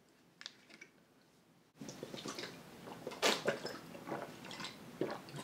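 A person drinking from a small bottle: a couple of faint clicks as the cap is twisted off, then liquid sloshing and gulps as it is tipped up and swallowed.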